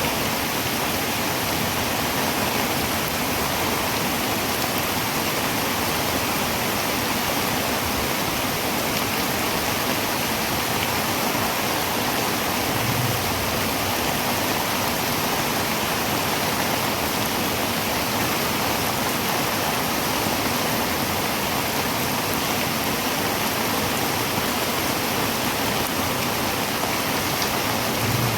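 Heavy rain drumming steadily on a tin roof, a dense, even hiss of drops with no letup.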